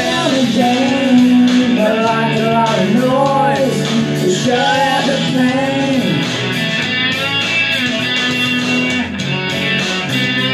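Single-cutaway electric guitar being played, with a man singing over it.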